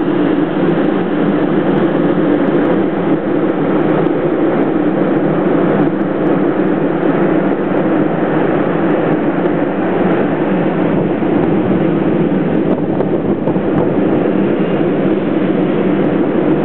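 Steady, loud mechanical drone: an even rushing noise with a low hum running under it, unchanging throughout.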